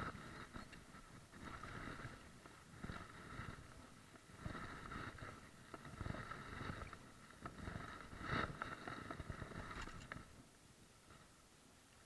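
Wooden kayak paddle dipping into river water, with splashing and dripping at each stroke, repeating about every second and a half; the strokes stop about ten seconds in.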